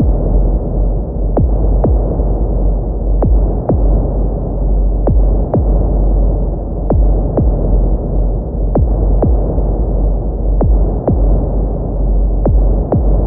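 Heartbeat sound effect: slow double lub-dub beats, one pair about every two seconds, over a steady low drone.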